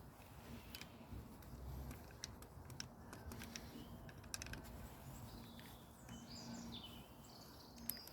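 Faint light clicks of a screwdriver and small screws being handled on a motorcycle handlebar switch housing, scattered through the first half, with a sharper click near the end. Birds chirp in short phrases in the second half.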